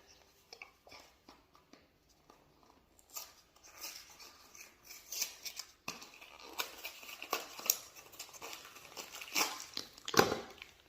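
Small plastic toy pieces and packaging being handled: irregular clicks, taps and rustles, with a louder knock near the end.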